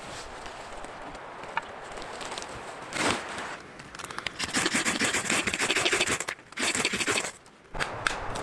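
Knife blade scraping along a piece of wood, shaving off curls for tinder in a fast run of short strokes. Near the end come a few sharp crackles from a small campfire.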